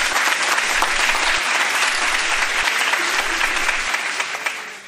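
Audience applauding, dense and steady, fading out near the end.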